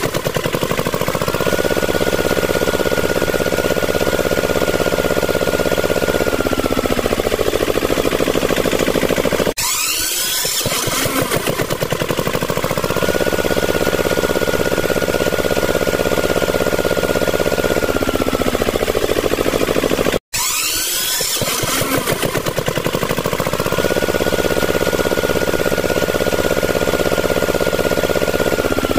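Small electric motor of a homemade bottle-body mini saw running with a steady high whine. The whine sinks as it slows and then drops out abruptly, twice, each time stuttering back up to speed, so it runs three times in all.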